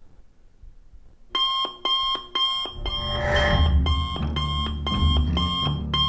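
Digital alarm clock beeping in a steady rhythm, about two beeps a second, starting about a second in. Low music comes in under it about three seconds in.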